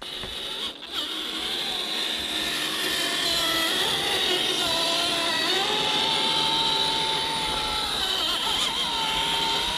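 Rlaarlo MK-07 1/7-scale RC crawler's electric motor and geared drivetrain whining as it crawls up a hill, the whine shifting in pitch with the throttle and rising to a higher steady note about halfway through.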